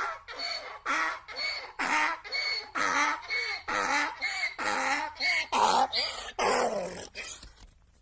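Donkey braying: a long run of rhythmic hee-haw calls, about two a second, trailing off near the end.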